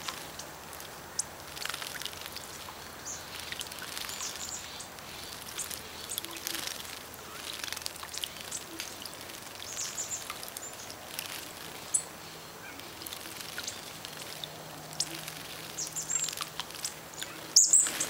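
A flock of small songbirds calling with many short, high, thin chirps. Near the end a louder flurry as the flock flies off the birdbath with wingbeats.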